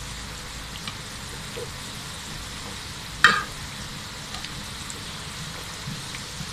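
Dough buns deep-frying in hot oil in a kadai, a steady sizzle. About three seconds in, one sharp metallic clink, a utensil striking the pan as the bun is turned.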